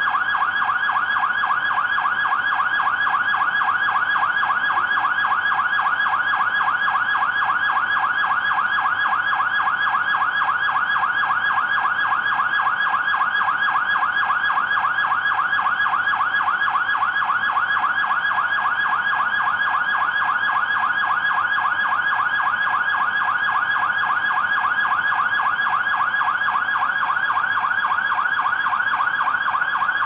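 Fire engine sirens sounding continuously in a fast, rapidly rising-and-falling warble.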